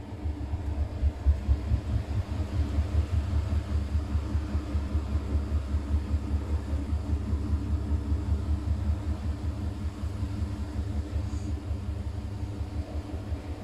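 Siemens iQ500 front-loading washing machine running its shirts programme: the drum motor turns the wash with a low, quickly pulsing hum that eases slightly near the end.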